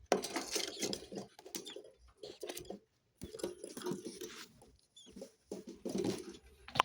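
Budgerigars chattering and warbling in a run of scratchy, irregular bursts, with short breaks about three and five seconds in.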